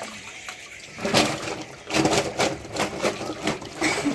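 Water splashing and sloshing in a fish holding tank as a man wading in it grabs fish by hand, water pouring off his arms. A run of repeated splashes starts about a second in.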